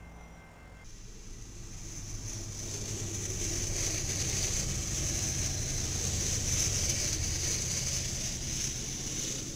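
Freight train passing close by: a low rumble of wheels on the rails that builds over a few seconds and then holds, with a steady high hiss over it.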